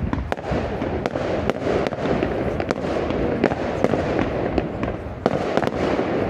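Fireworks display going off: many sharp bangs and crackles in quick, irregular succession.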